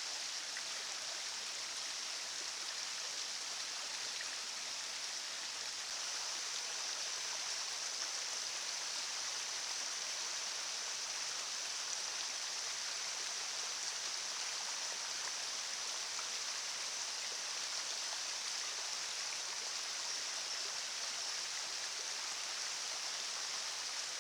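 River water flowing steadily, an even rushing noise. A steady high-pitched hiss lies over it and grows a little stronger about six seconds in.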